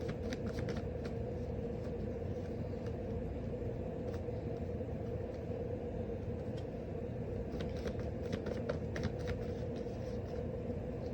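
Tarot cards being shuffled: patters of soft clicks near the start and again about eight seconds in, over a steady low hum.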